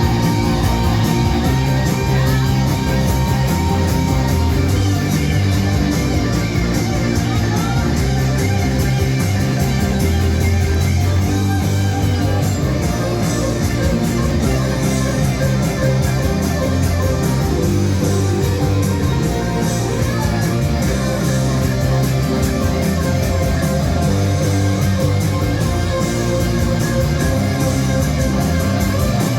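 Rock music led by guitars, loud and unbroken.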